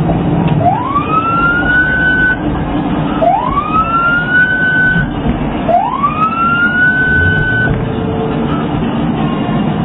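Police car siren giving three rising wails about two and a half seconds apart, each climbing in pitch, holding briefly and then cutting off.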